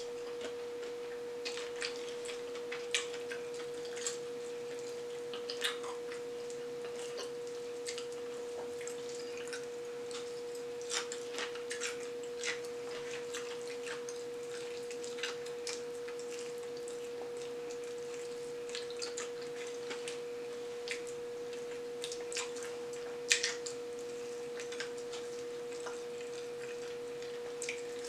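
Close-up eating sounds of fried chicken: irregular short clicks, crunches and mouth smacks as the breaded chicken is bitten and chewed, with one louder pair a little over three-quarters of the way through. A steady mid-pitched hum runs underneath.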